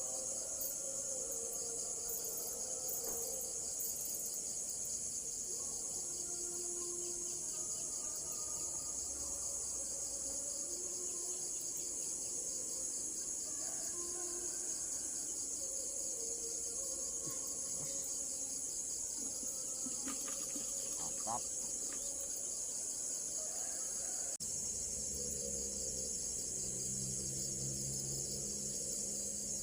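Steady chorus of insects, a dense high-pitched buzzing drone that holds unbroken throughout.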